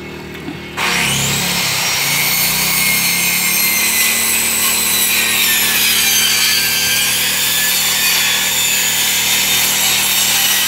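Handheld electric power tool cutting, starting about a second in and running steadily under load with a high whine.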